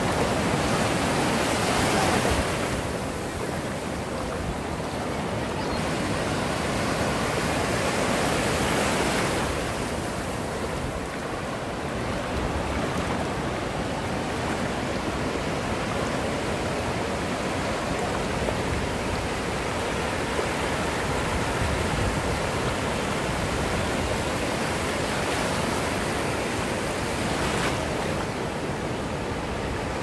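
Ocean waves breaking on a beach: a continuous wash of surf, swelling louder twice in the first ten seconds and then running more evenly.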